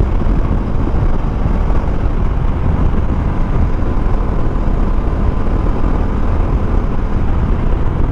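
Steady wind rush over the microphone with the Bajaj Dominar 250's single-cylinder engine running underneath, riding along at an even speed.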